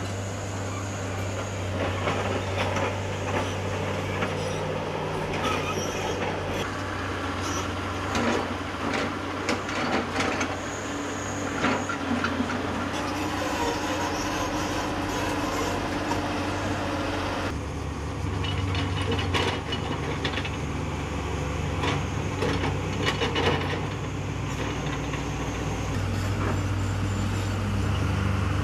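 Heavy diesel construction machinery running, a steady low engine drone with irregular clanks and knocks; the engine note changes about two-thirds of the way through.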